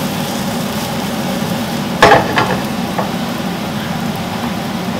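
Sliced bay bolete mushrooms sizzling in a frying pan over the steady hum of a kitchen extractor fan. About two seconds in the pan clatters as it is set down on the gas hob's grate, and a lighter knock follows a second later.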